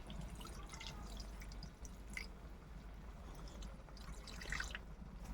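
Faint, scattered drips and small bubbling pops of liquid in a karahi of chicken chaap gravy cooking on very low heat.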